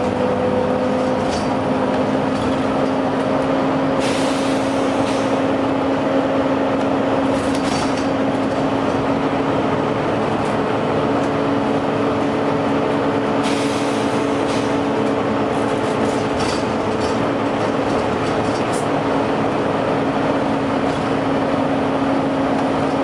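Volvo B9TL double-decker bus running, its cooling fan giving a steady, very loud whine over the engine. Short hisses of air break in a few times.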